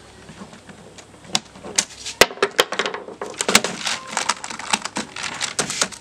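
Plastic keys of a computer keyboard clicking in an irregular run, starting about a second in and growing quicker and denser, as the freshly cleaned keycaps are pressed down.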